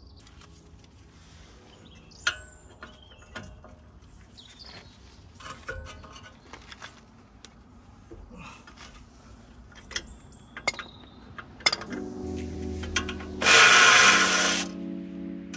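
Scattered metallic clinks of tools on a BMW M4's front brake caliper. Near the end a cordless power tool whirs up, then runs loudly for about a second and a half, working on the caliper bolts.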